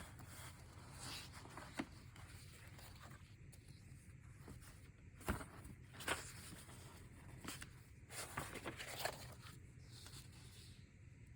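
Faint, scattered rustles and a few soft knocks, over a low steady hum.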